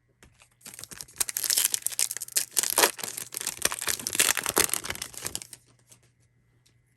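Plastic-foil trading card pack wrapper being torn open and crinkled, a dense crackling that starts about half a second in and stops sharply about five seconds later.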